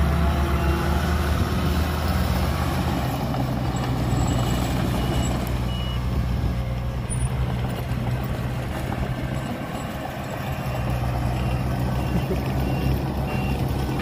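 Diesel engines of a loaded dump truck and a small Komatsu crawler bulldozer running with a steady low drone. A reversing alarm beeps in short runs near the start, about four seconds in, and again near the end.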